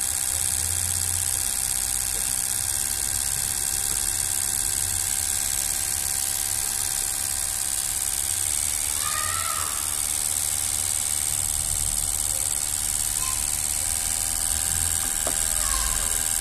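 Fuel injector test bench running steadily: the pump motor hums while the injectors spray test fluid into the graduated cylinders with a constant high hiss.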